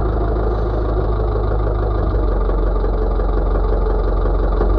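Backhoe's diesel engine running steadily at an even speed.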